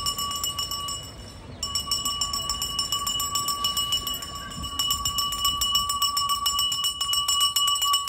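Garbage collector's bell rung rapidly and steadily, a ringing tone with fast repeated clapper strikes that stops for about half a second about a second in, then resumes. It signals that the trash truck is coming to collect garbage.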